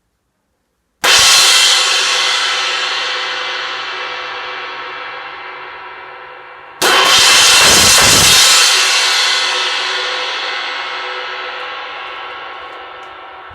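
An 18-inch Zildjian A Custom EFX crash cymbal, freshly repaired, struck twice, about six seconds apart. Each crash rings out bright and washy and fades slowly.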